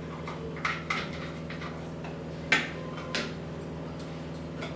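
Metal spoon scraping and knocking inside a steel mixer-grinder jar while scooping out thick ground masala paste: a few short clinks and scrapes, the sharpest about two and a half seconds in, over a steady low hum.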